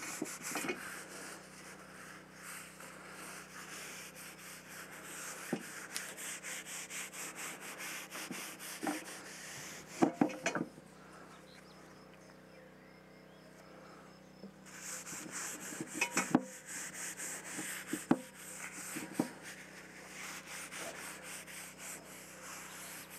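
Paper towel rubbing a thin coat of oil over the outside of a cast-iron Dutch oven before seasoning: a fast, steady scrubbing swish that stops for a few seconds near the middle and then picks up again, with a few light knocks.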